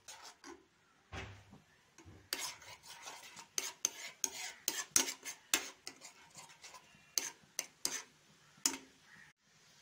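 A spoon scraping and clinking against a pan as thick, bubbling tomato puree is stirred, in quick irregular knocks.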